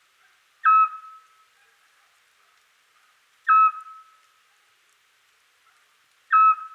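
Eurasian scops owl giving its single-note whistled territorial call three times, evenly spaced about three seconds apart, each short note trailing off.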